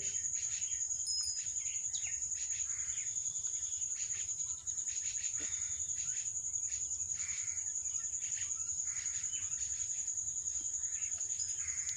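A steady high-pitched insect trill, with faint bird chirps now and then.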